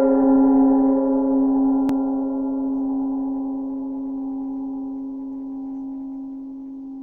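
A 49 cm hand-engraved Nepalese gong ringing out after a soft-mallet stroke: a strong low hum with many higher overtones, slowly fading. A faint click about two seconds in.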